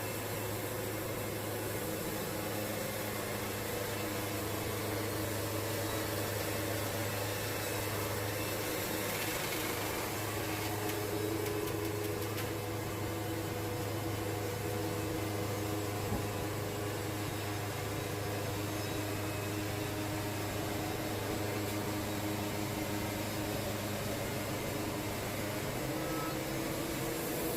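Wood-Mizer band sawmill running steadily, its band blade cutting along a large cypress log with an even mechanical hum.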